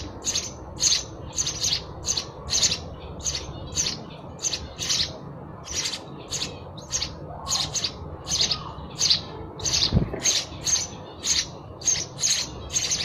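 House sparrow chirping steadily, short high chirps repeated two to three times a second. A single low thump about ten seconds in.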